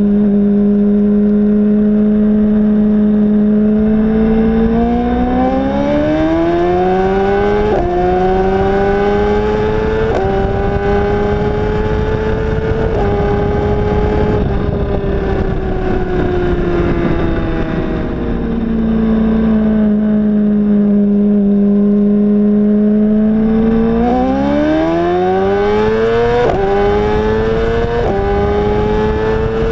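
Sportbike inline-four engine pulling hard at wide-open throttle in a roll race. The revs climb with three quick upshifts, each dropping the pitch, then ease off to a steady cruise. About 24 seconds in the throttle opens again for a second pull with two more upshifts.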